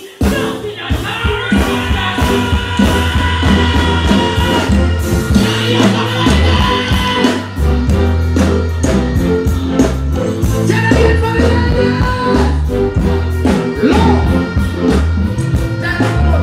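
Live band music with a heavy bass line and a singer's voice over it.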